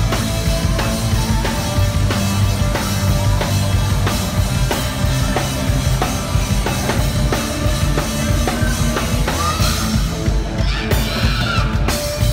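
Live rock band playing with a loud drum kit keeping a steady beat.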